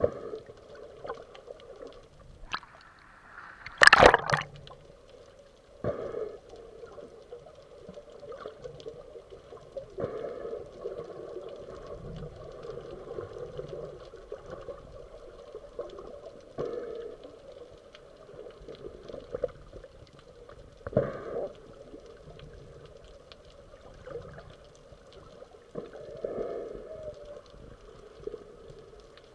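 Underwater ambience: muffled swirling, gurgling water with irregular swells and several sharp knocks, the loudest about four seconds in.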